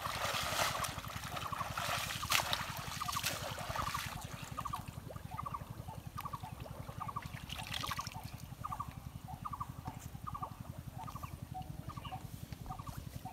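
Water splashing and sloshing as people wade and pull water hyacinth in a pond, strongest in the first few seconds. A short call repeats about one and a half times a second, with a steady low drone underneath.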